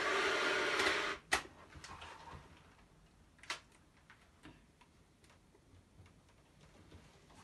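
A Pigini button accordion holds a chord that cuts off about a second in. A sharp click follows, then scattered light clicks and knocks as the accordion is handled before playing resumes.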